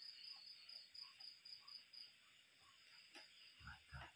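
Faint night crickets chirping in a rapid, even pulse that dies away about halfway through and picks up again at the end, with a couple of soft low knocks shortly before the end.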